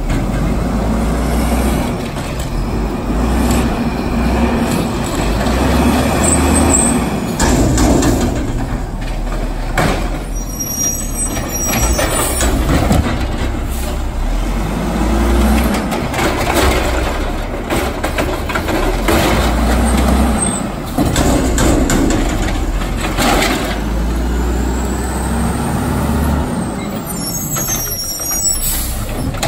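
Automated side-loading garbage truck's diesel engine running, rising and falling as it pulls up and stops, with air brake hisses. Sharp knocks and clanks come from the arm working the trash carts.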